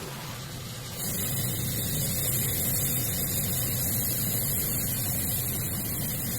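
Five-axis CNC wood lathe machining a wooden leg: a steady low hum under a broad hiss, which steps up suddenly about a second in and then holds steady.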